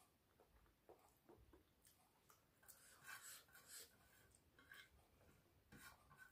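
Faint eating sounds: chewing and fingers scraping and mixing rice and pork on a tin plate, a scatter of soft clicks and scrapes that grow a little louder about three to four seconds in.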